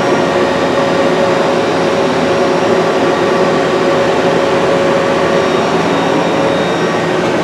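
Steady mechanical hum of a Citizen M20 CNC Swiss lathe and its Cincom magazine bar loader powered up, with a few steady tones over a dense whir and no change in pitch or level.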